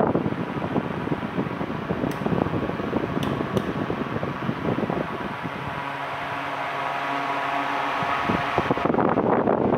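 Electric pedestal fan running, its blades blowing a steady rush of air that buffets the microphone. There are three short clicks about two to four seconds in, and a steady motor hum comes through from about halfway until near the end.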